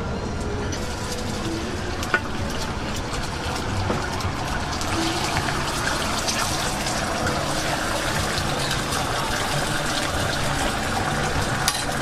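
Steady sizzle and crackle of food frying, getting busier and hissier about halfway through, with a sharp click about two seconds in.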